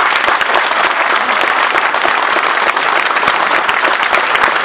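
An audience applauding steadily: a large crowd clapping after a speech.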